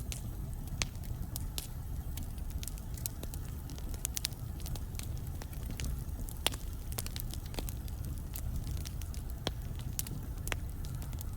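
Wood fire burning in a fireplace: a steady low rumble of the flames with irregular crackles and snaps from the burning logs, a few louder pops among them.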